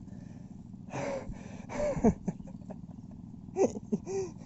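A man's short grunts and gasps of effort, four in quick succession, as he struggles to keep his footing on slippery ground.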